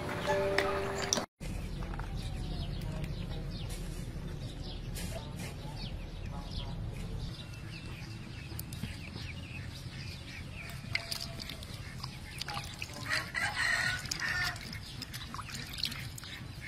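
Chickens clucking, with a rooster crowing loudest a little past two-thirds of the way in, over small splashes and drips of water as raw chicken wings are washed by hand in a metal basin.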